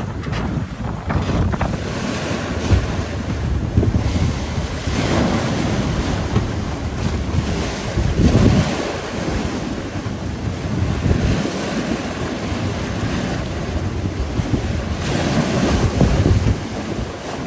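Sea water rushing and splashing past a sailing catamaran's hull and stern, with wind buffeting the microphone. The water swells to louder surges every few seconds.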